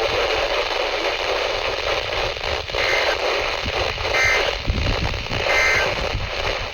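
Radio receiver static: a steady hiss from a weak weather-radio signal. A few faint short tones break through about three, four and five and a half seconds in.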